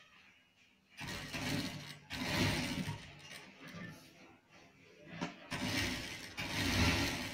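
Sewing machine running and stitching fabric in two runs, the first starting about a second in and stopping about two seconds later, the second starting about five and a half seconds in.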